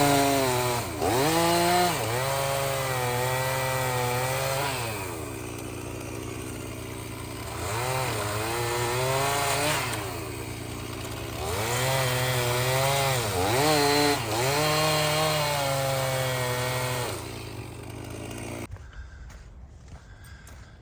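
Stihl MS 391 two-stroke chainsaw running at high revs while bucking firewood rounds. Its pitch dips sharply several times as the chain bogs under load and then recovers, with two quieter, slower stretches between cuts. The saw's sound cuts off suddenly near the end.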